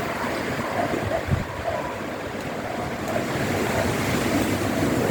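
Strong gusty wind from a passing cyclone rushing and buffeting the microphone, with a low thump about a second in and the wind growing louder toward the end.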